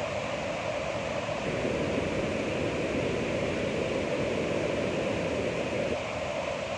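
Ocean surf washing in a steady rush, swelling fuller about a second and a half in and easing off near the end.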